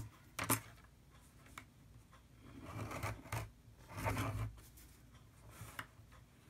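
A scoring tool drawn along a metal ruler across cardstock in several short scratchy strokes, hand-scoring fold lines into the paper. A sharp knock about half a second in as the ruler is laid down.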